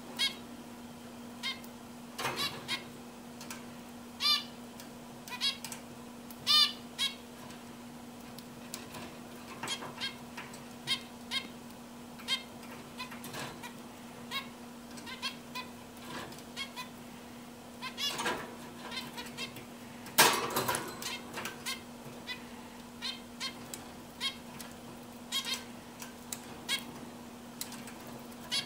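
Zebra finches calling: short, nasal, pitched calls at irregular intervals, a few louder than the rest, over a steady low hum.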